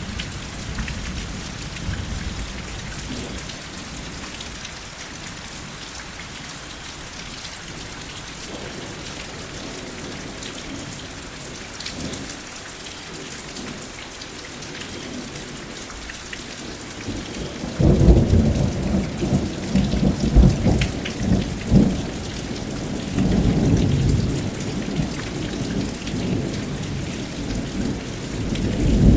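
Steady rain falling, with a crack of thunder breaking suddenly about two-thirds of the way through and rolling on in deep rumbling waves to the end.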